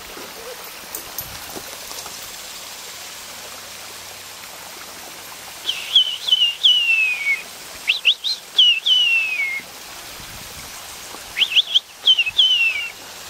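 A songbird singing three phrases, each a few short chirps followed by a long whistled note sliding down in pitch, over the steady rush of a small garden waterfall.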